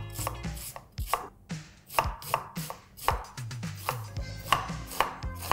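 Chef's knife finely dicing a red onion on a wooden cutting board: a run of quick chops, about two to three a second.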